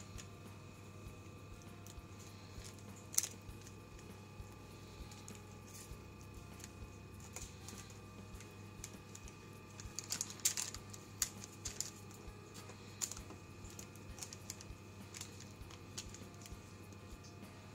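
Lamb ribs on baking paper being coated by hand in a sticky glaze: scattered small wet clicks and paper crackles, with a busier cluster about ten seconds in, over a steady low hum.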